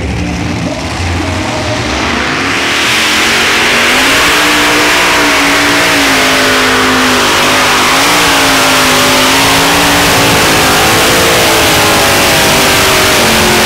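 Multi-engine unlimited-class pulling tractor with supercharged engines running flat out while pulling a weight-transfer sled. It gets louder about two and a half seconds in, then holds at full throttle with the engine pitch wavering up and down under the load.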